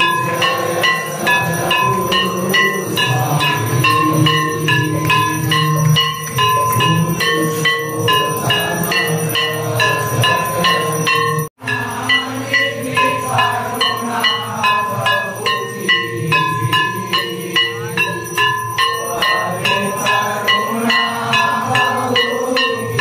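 Temple arti music: rhythmic bell and drum strikes, about two a second, over a steady held tone. It drops out for an instant about halfway through.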